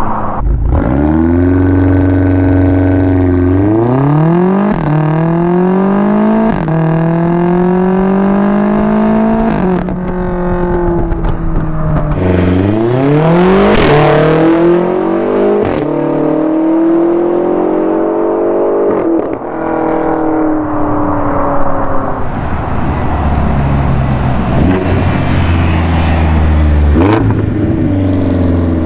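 Tuned BMW X6M twin-turbo V8 through an Eisenmann exhaust with Dinan mufflers, accelerating hard up to and past the listener. The note climbs through each gear with sudden drops at several upshifts and is loudest as the car passes about halfway through. Afterwards it runs lower and steadier as it moves off, with a short rev near the end.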